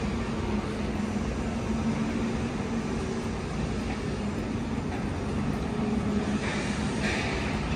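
Steady low background rumble with a constant low hum; a brief higher hiss comes in near the end.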